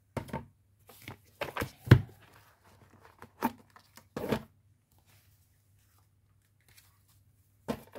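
Cardboard card box being handled and moved across a corrugated board: a few short scrapes and rustles, the loudest about two seconds in, then a pause and one more near the end.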